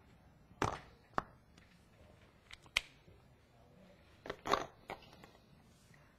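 Whiteboard markers being handled at the whiteboard's tray: a few sharp clicks and rattles as they are picked up and set down, the loudest about four and a half seconds in.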